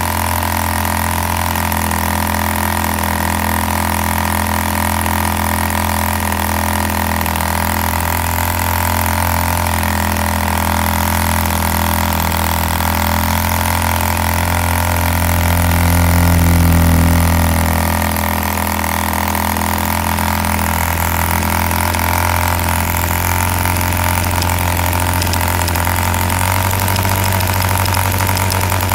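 Homemade replica of a 1945 Thorning Monsun two-stroke model diesel engine running steadily at high speed, a fast even buzz that briefly swells louder around the middle.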